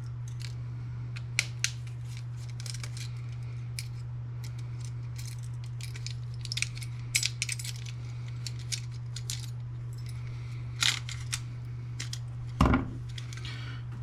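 Scattered small clicks and taps of plastic and metal printer parts being handled and pried apart, with a louder knock near the end, over a steady low hum.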